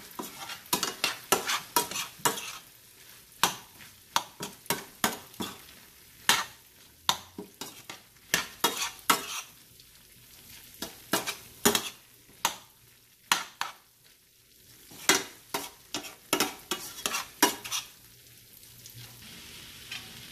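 A spoon stirring and scraping mutton liver fry around a pan in quick, irregular strokes, over a low sizzle as the last of the cooking liquid dries off. The strokes stop near the end, leaving only the sizzle.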